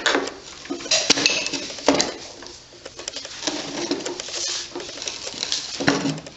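Small metal engine parts and hand tools clinking and rattling as they are handled. There are several sharp knocks, near the start, about one and two seconds in, and near the end.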